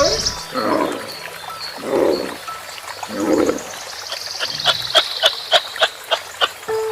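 Animal calls: three short low calls about a second and a half apart, then a quick run of clicking calls, about four a second.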